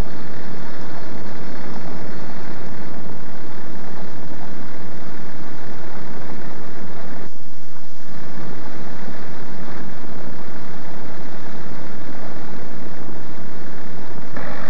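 Gee Bee racing plane's piston engine running, a loud, steady noise that dips briefly a little past seven seconds in.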